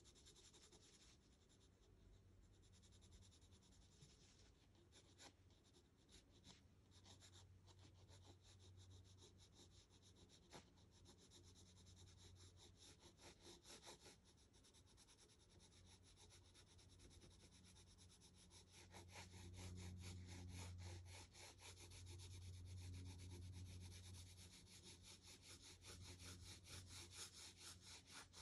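Faint scratching of a graphite pencil on sketchbook paper in quick, repeated shading strokes, busier and louder in the second half. A steady low hum runs underneath.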